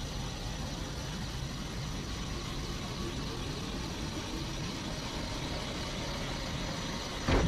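Steady low rumbling of an anime power-up sound effect, an energy aura building, with a faint high whine over it. A sudden louder blast breaks in just before the end.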